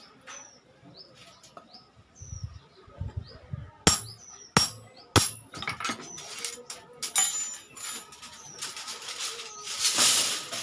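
A bird repeats short, falling high chirps. Then come three sharp metallic clinks about two-thirds of a second apart, like iron struck with a tool, followed by more clicks and a brief rushing noise near the end.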